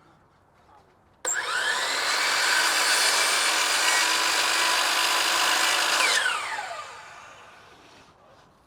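Electric power saw cutting a siding board: it starts abruptly about a second in, spins up and runs steadily for about five seconds, then switches off and winds down with a falling whine.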